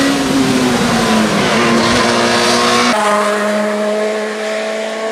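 Peugeot 207 S2000 rally car's two-litre four-cylinder engine at high revs. Its pitch drops over the first second and a half as the car slows for a tight bend, then climbs again as it accelerates away.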